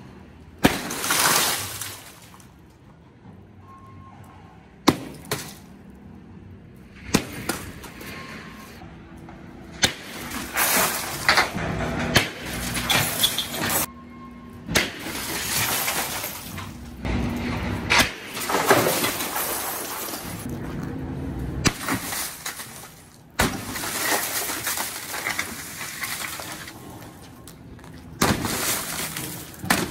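Repeated hammer blows shattering the glass of commercial doors and storefront windows: a series of sharp cracks at irregular intervals, each followed by the crackle and tinkle of breaking and falling glass.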